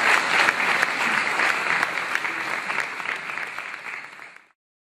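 Audience applauding, the clapping growing fainter and then cutting off abruptly near the end.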